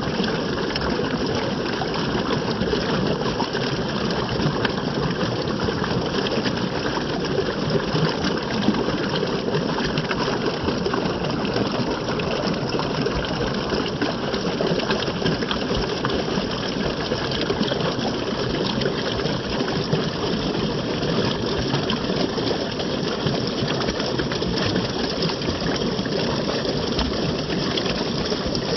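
Running water rushing steadily in a continuous, even gush.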